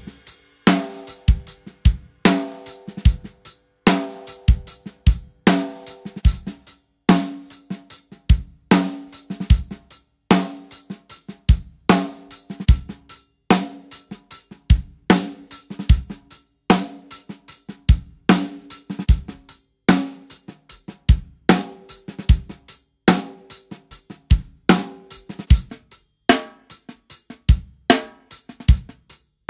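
Drum kit playing the same simple beat (bass drum, snare and cymbals) in short back-to-back takes, each with a different Evans special-design snare head: the Onyx, then the red oil-filled two-ply Hydraulic, and near the end the heavy woven Hybrid tuned high.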